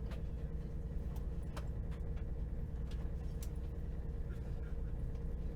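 Steady low rumble inside a Cross Country passenger train, with a constant hum over it and a few faint clicks.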